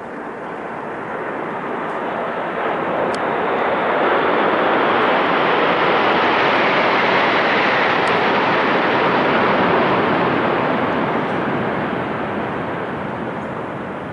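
Jet engine noise of a formation of four military fighter jets flying low overhead, swelling over the first few seconds, loudest in the middle, then fading as they pass.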